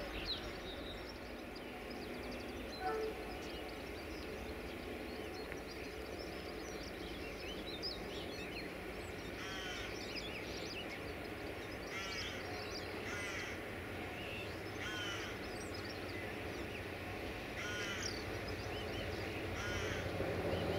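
Birds calling: short, harsh calls repeated every second or two over a steady low rumble of background noise, which begins to grow louder near the end.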